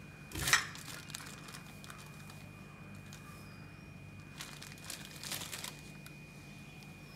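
Crinkling and rustling of packaging being handled, with one sharp crinkle about half a second in and a longer stretch of rustling a little after four seconds in.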